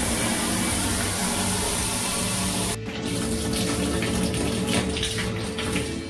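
Handheld shower running, water pouring from the hose into a bathtub. About three seconds in the sound of the stream changes as a hand is put under it, splashing like someone washing.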